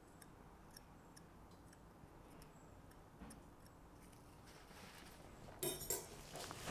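Faint, irregular small ticks of a metal dental hand excavator scraping setting Biodentine cement at the cavity margins, then, about a second before the end, a louder rush of hiss-like noise.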